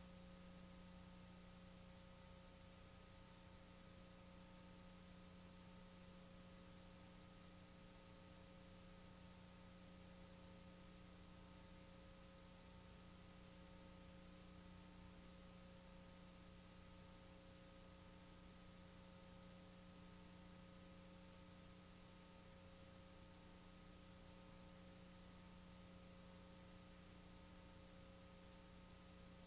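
Near silence: a faint, steady electrical hum over a constant hiss.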